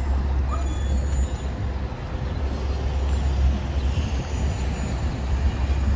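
Outdoor street ambience dominated by a low rumble that drops out and returns a few times, with no single clear event.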